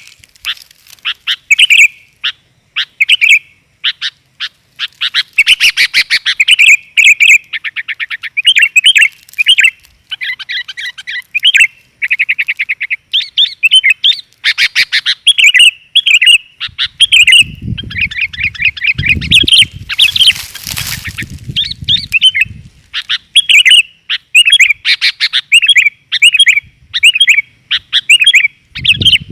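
Sooty-headed bulbul (kutilang) calls: loud, quick chirping notes and fast trills repeated without pause, a lure call of the female's voice for drawing in males. A low rumble with a brief rushing noise comes about two thirds of the way in.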